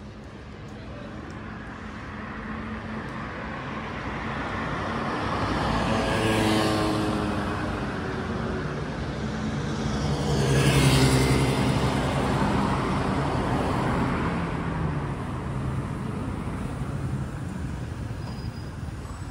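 Street traffic with two cars passing close by, the first about six seconds in and a louder one about eleven seconds in, each engine note dropping in pitch as it goes past.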